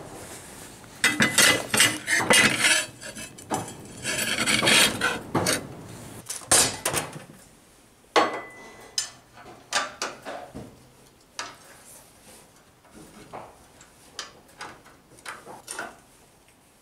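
Flat cut steel bracket plates and spanners being handled and fitted on a workbench: metal clinks, scrapes and knocks. The clatter is dense for the first several seconds and thins to scattered taps after that.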